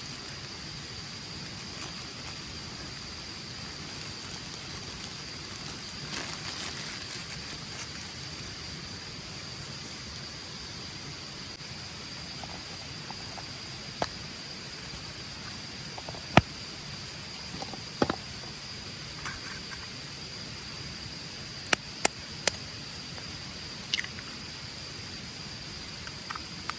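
Campfire crackling, with a handful of sharp pops and snaps in the second half, over a steady high-pitched insect drone.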